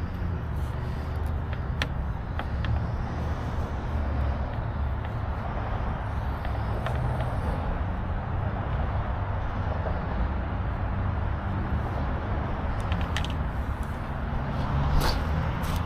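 A steady low rumble with a few light clicks and taps from hand work on a van door's handle mechanism, and a sharper cluster of clicks near the end.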